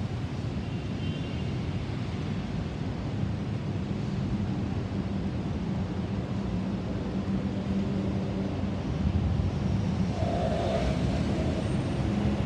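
Low, steady rumble of the Rolls-Royce Trent 700 jet engines of a departing Airbus A330-343 on its climb-out, growing a little louder near the end.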